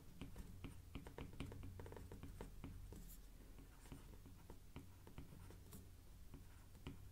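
Faint handwriting with a stylus on a tablet: many quick, light taps and short scratchy strokes.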